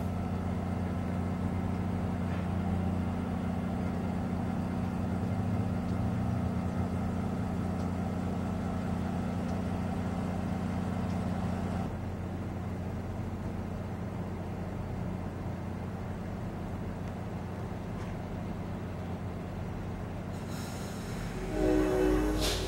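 MARC commuter train standing at the station, its diesel engine humming steadily. Near the end comes a brief hiss, then a short, louder pitched blast.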